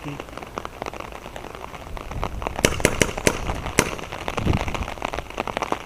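Steady rain noise, with a quick run of sharp cracks about halfway through.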